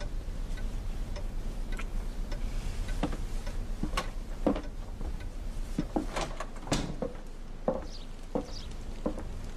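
Footsteps and light knocks on a wooden floor as people walk through the house, over a low steady hum.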